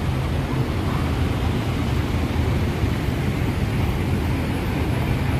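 Steady road traffic noise: the low engine rumble of jeepneys, buses, cars and scooters in congested city traffic.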